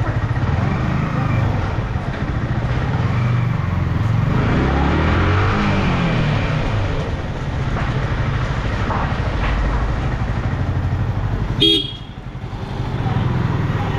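Yamaha R15's single-cylinder engine running as the bike rolls slowly, its revs rising and falling a few seconds in. Near the end there is a short horn toot, after which the engine sound drops for a moment.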